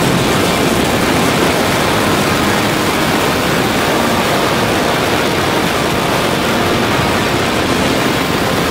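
Racing go-kart engine running at speed, heard from an onboard camera, largely masked by steady wind noise on the microphone.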